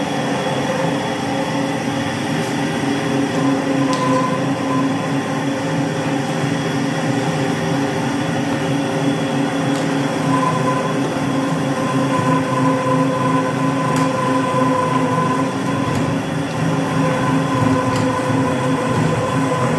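Electric butcher's meat grinder running steadily under load, mincing rib meat fed in with a wooden pusher: a constant motor hum at one steady pitch.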